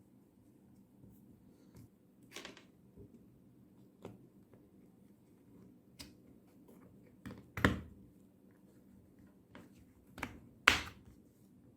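Scattered clicks and knocks of small hard parts being handled, with two louder knocks about seven and a half and ten and a half seconds in; no motor running.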